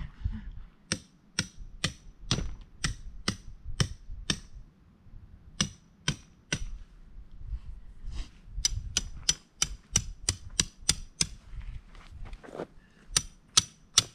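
Tent stakes being hammered into the ground: runs of sharp strikes about two a second, each with a short ring, pausing briefly twice between runs.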